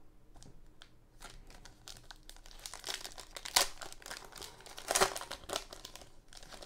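Foil wrapper of a Donruss football card pack crinkling and tearing as it is opened by hand, with two sharper, louder crackles about three and a half and five seconds in.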